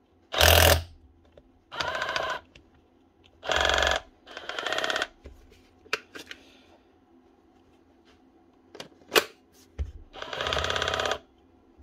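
DeWalt DCH273 cordless SDS drill test-run in about five short trigger pulls, its motor whirring up and stopping each time, with a few sharp clicks between pulls. The drill is being run to hear a fault it came in with.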